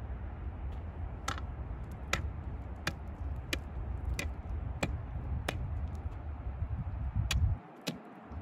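Steel ice spud jabbed down into pond ice, about ten sharp strikes roughly two-thirds of a second apart, testing the ice's thickness before walking out on it.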